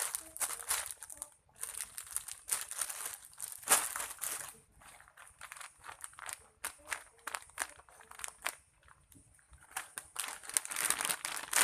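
Soft foam squishy toys squeezed by hand, giving bursts of crinkly, crackling rustle with short pauses between squeezes.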